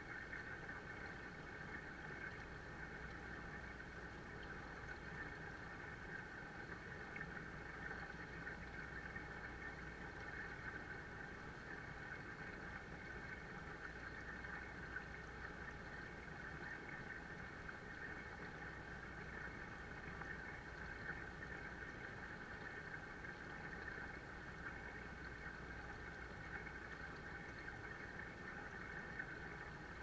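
Small waterfall pouring steadily into a koi pond: a constant rush of splashing water that never changes, with a steady low hum underneath.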